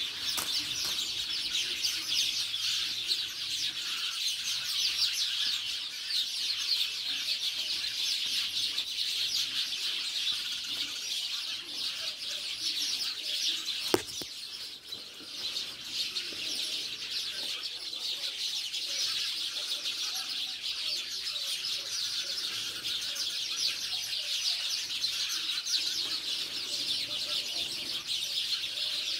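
A dense, continuous chorus of many small birds chirping, with one sharp click partway through.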